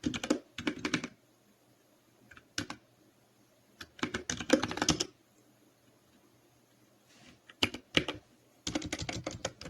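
Computer keyboard typing in short bursts of keystrokes separated by pauses of a second or two.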